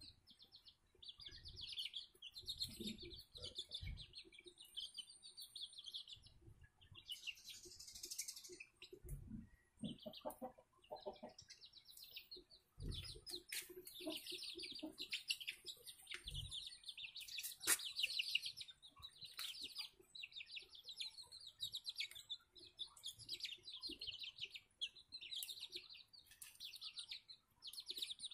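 Young chickens peeping: faint high chirps repeating about once a second, each a quick run of pulses. A few soft low knocks come in between.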